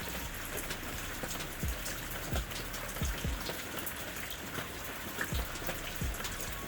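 Steady rain falling, many fine drop ticks over an even hiss, with irregular low thuds every second or so.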